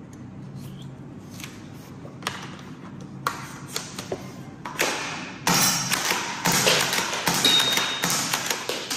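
Plastic clicks and knocks of a toy pump-action foam dart blaster being handled: a dart pushed into its shell, then the pump grip racked. Single sharp clicks come every second or less, growing louder and closer together in the second half.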